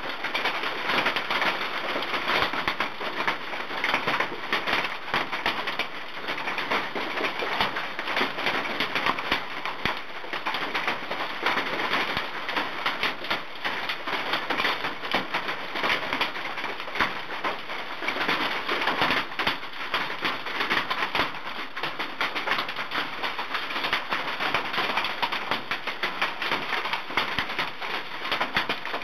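Large hailstones pelting down, a dense, unbroken clatter of countless small impacts on the ground and trees, very loud.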